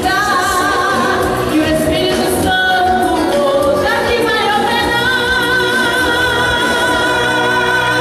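A woman singing a gospel worship song into a microphone over live instrumental backing, ending on a long held note with vibrato over the last three seconds.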